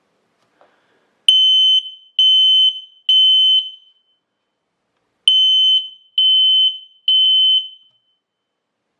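WisuAlarm S05-R8-B smoke alarm sounding its manual test alarm: two rounds of three loud, high-pitched beeps, each about half a second long, the standard temporal-three evacuation pattern.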